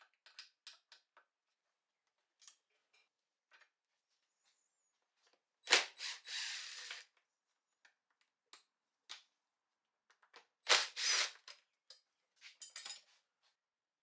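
Scattered light clicks and knocks of small hard objects, with two louder rattling clatters about six and eleven seconds in.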